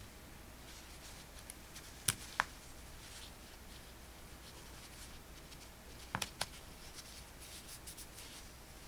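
Two pairs of sharp clicks, about two and six seconds in, with faint scratching and rustling between: small tools or parts being handled on a workbench.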